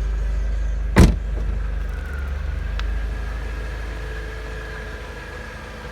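One loud slam about a second in, over the steady low idle of a Mercedes-Benz SLK 200 Kompressor's supercharged four-cylinder engine, which slowly fades.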